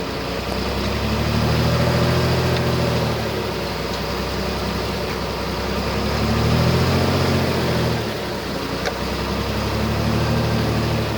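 Diesel engine of heavy earthmoving equipment working steadily, its low note swelling and easing about three times as the load comes and goes.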